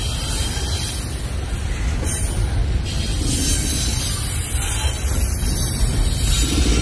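Union Pacific double-stack intermodal train rolling past at close range: a steady rumble of container well cars on the rails, with a high hiss of wheel noise.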